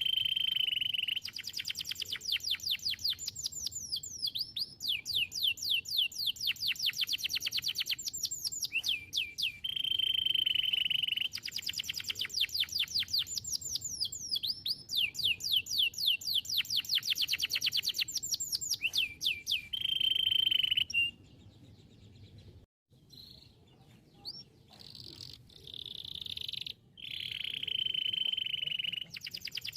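Domestic canary singing: long, rapid trills of quick falling notes alternating with steady, high rolling tones, the phrases repeating. The song drops away about two-thirds through and resumes near the end.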